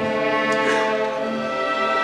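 Symphony orchestra playing, its bowed strings holding sustained notes.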